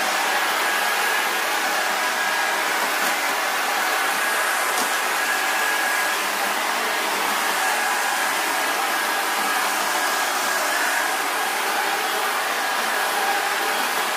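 Upright vacuum cleaner running steadily: a constant high motor whine over a rush of air.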